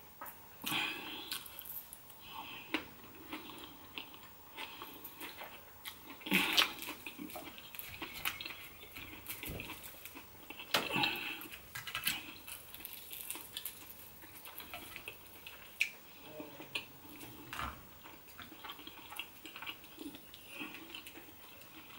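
A person chewing and eating close to the microphone, with scattered light clicks of a plastic fork against a plate. The sounds are louder about six and eleven seconds in.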